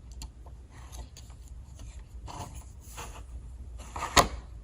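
Light metal clicks and scrapes as a fold-out tool on a Gordon 20-in-1 multi-tool is worked back into its handle, ending in one sharp click about four seconds in as it snaps into place.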